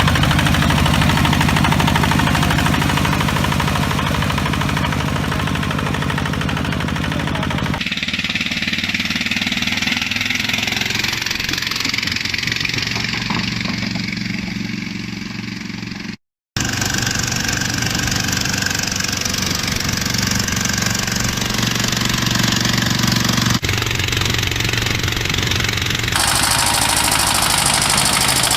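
Walk-behind tractor engines running, heard in several clips cut one after another. The engine sound changes abruptly about eight seconds in and again near the end, and cuts out for a moment about sixteen seconds in.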